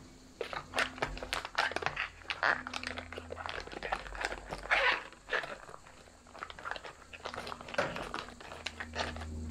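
A spoon stirring rehydrating freeze-dried meal inside its stand-up pouch: irregular crinkling of the pouch and scraping and mashing of the wet food, with a few louder crinkles.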